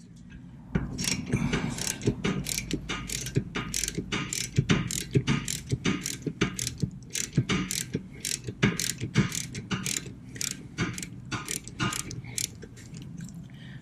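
3/8-inch drive ratchet with a 14 mm socket clicking as it is worked back and forth, backing out a loosened rear brake caliper slider-pin bolt. A steady run of clicks, about two to three a second, starting about a second in.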